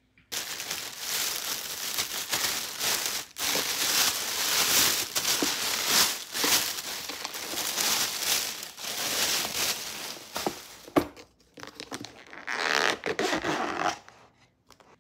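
Thin plastic bag crinkling and rustling as it is unwrapped and handled, dropping out twice near the end.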